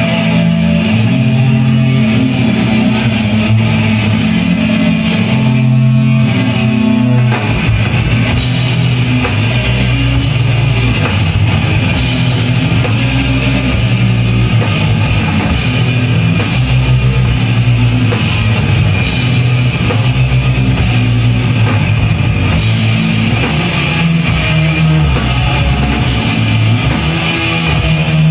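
Rock music with guitar; about seven seconds in, drums and a heavier bass come in and the song fills out.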